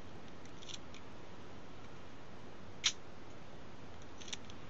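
A single short, sharp click about three seconds in, with a few faint ticks before it and near the end, over low hiss: the leaf shutter of a Mamiya Sekor 65mm f/6.3 lens tripping at its 1/250 s setting.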